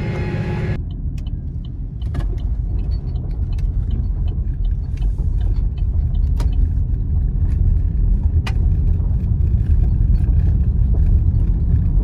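A steady pitched machine hum cuts off abruptly less than a second in. A car then drives on a gravel road: a low rumble of engine and tyres with scattered light ticks.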